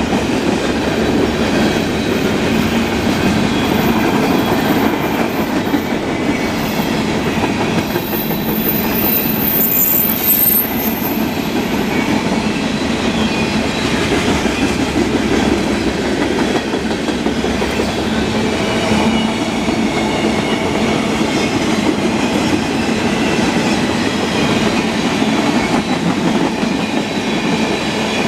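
Freight cars of a long mixed freight train, mostly tank cars and covered hoppers, rolling past steadily, with the clatter of wheels over the rails. A thin high wheel squeal sounds over roughly the first twelve seconds, strongest a little before it fades.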